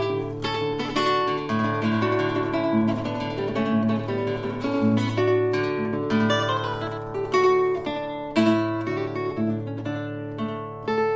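Instrumental music led by a plucked acoustic guitar: a steady flow of picked notes over held bass notes.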